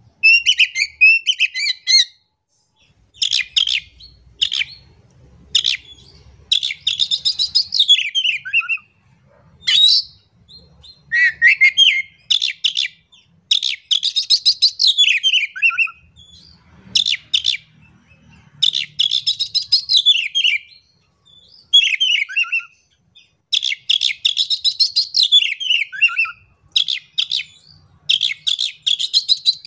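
Oriental magpie-robin singing loudly, about a dozen short phrases of rapid stuttered notes, each ending in falling whistled glides, with brief pauses between them.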